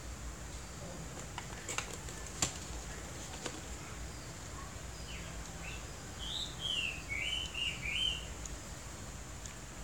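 A bird sings a short run of whistled chirps that glide up and down, about six seconds in, over a steady low room hum. A few light clicks come earlier.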